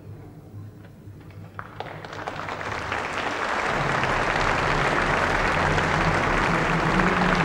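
Theatre audience applauding: a few scattered claps start about a second and a half in, then build into full, steady applause.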